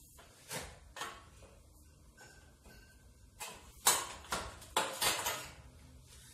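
Galvanized steel tube knocking against a manual tube roller (calandra) as the bent ring is worked and handled: a few sharp metallic knocks, then a quick cluster of them, the loudest about four seconds in.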